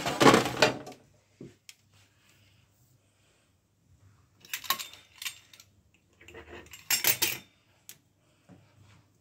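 Kitchen utensils and a baking tray clattering and scraping on a stone countertop in three short bursts, the first the loudest.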